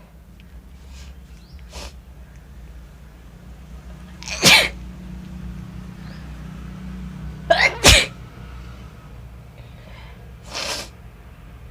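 A woman sneezing repeatedly, set off by sniffing chilli powder: one loud sneeze about four seconds in, two in quick succession about eight seconds in, and a softer one near the end.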